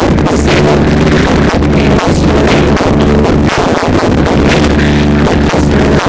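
Loud electronic hip-hop music with a steady beat and heavy bass, no vocals.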